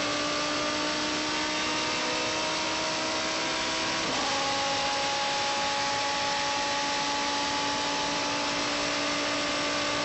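Judd V10 engine of a Pescarolo 01 Le Mans prototype, heard onboard, running at high revs under full throttle with a steady, slowly climbing pitch. About four seconds in, the pitch steps down once at an upshift, then holds steady again.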